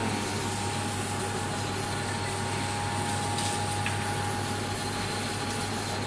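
Biomass sawdust briquette machine running steadily: its electric motor and screw extruder give a constant low hum with a thin, high steady whine over it.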